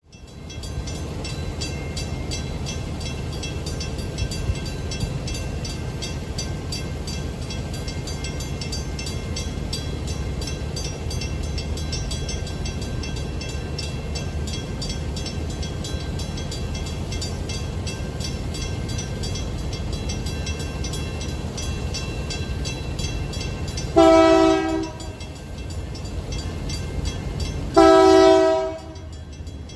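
Railroad grade-crossing warning bell ringing steadily over a low rumble. About 24 seconds in, the approaching freight locomotive's horn sounds a long blast, then a second about four seconds later, its crossing warning.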